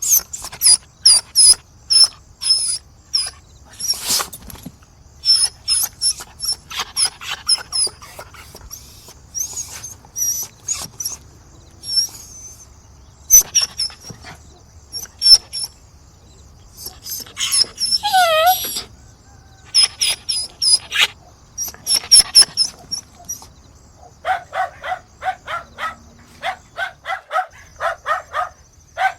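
Dog barking and yelping in quick repeated series, with one longer whining call about two-thirds through and a fast run of short barks near the end.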